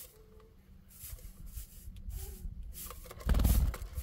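Wind buffeting the microphone, a gusty low rumble with a strong gust about three seconds in.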